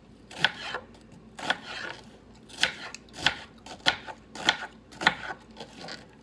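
Chef's knife slicing through a raw onion on a plastic cutting board: about seven cuts, each a crisp crunch with a sharp knock on the board, coming faster after the first few.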